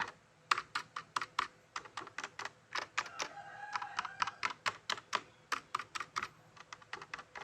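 Typing on a Rexus Legionnaire MX5.1 mechanical keyboard with red (linear, non-clicky) switches: irregular key strokes at a few per second, with no switch click.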